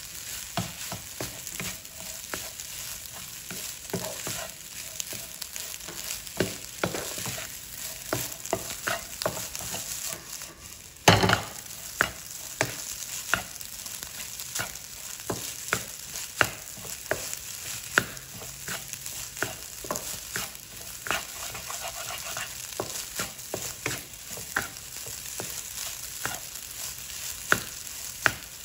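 Egg fried rice sizzling in a nonstick wok as a wooden spatula stirs and tosses it, dry-frying the rice until the grains separate. The spatula makes frequent light taps on the pan, with one loud knock partway through.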